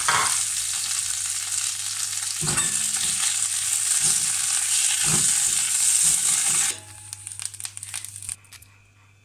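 Mint leaves sizzling as they fry in oil in a pan, with a spatula scraping and stirring them now and then. The sizzling stops suddenly about two-thirds of the way through, leaving a few faint clicks and then near quiet.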